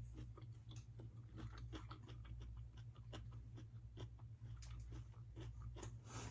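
Close-miked chewing: small wet mouth clicks and smacks, several a second and irregular, over a steady low hum.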